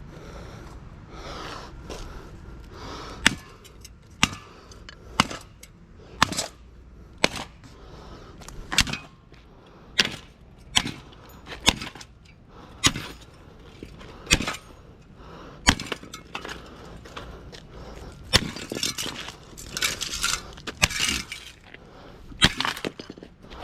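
Hammer blows on metal, about one sharp strike a second, driving a makeshift rod into an electric motor to knock out its copper windings. Near the end come a few seconds of scraping and rattling metal.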